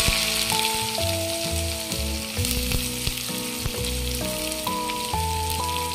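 Sliced onions sizzling in hot oil in a kadhai, a steady frying hiss just after they go in, with background music playing a melody.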